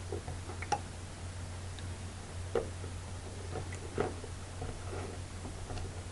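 Small sharp clicks and taps of wire leads and components being handled and pushed into a solderless breadboard, three of them louder than the rest, over a steady low hum.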